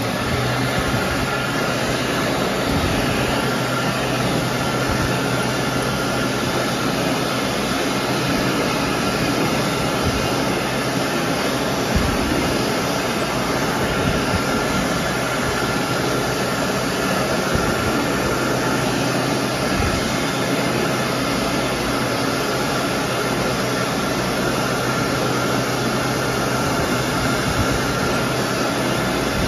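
World Dryer Model RA hand dryer running steadily, a rush of blown air over a steady motor hum with a faint high whine.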